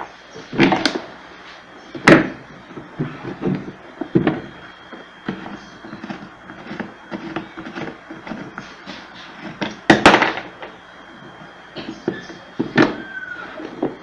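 Hard plastic clacks and knocks as the grille guard of a pedestal fan is worked loose and handled, with the sharpest knocks about two seconds in and again about ten seconds in.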